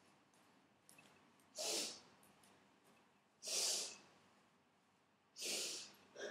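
Schnauzer snorting, three short breathy snorts about two seconds apart.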